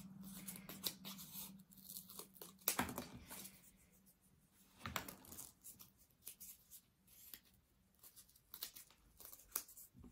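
Small craft scissors snipping through a cardboard disc: faint, irregular short snips and crunches as the blades work around a small inner hole.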